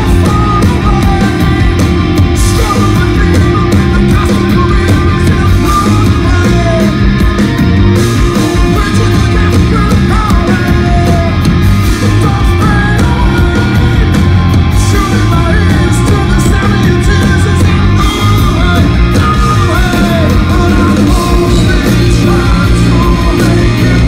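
Live rock band playing loud: electric guitar, bass and a full drum kit, with sung vocals over the top.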